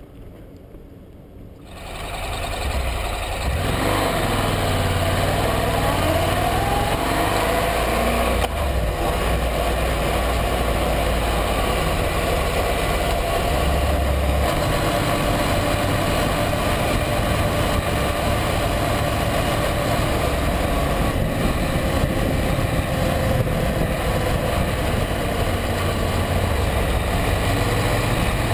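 Honda NC700X's parallel-twin engine pulling away from a stop. It is quiet for the first two seconds, then rises in pitch as the bike accelerates, then runs steadily at road speed under a constant rush of wind and road noise.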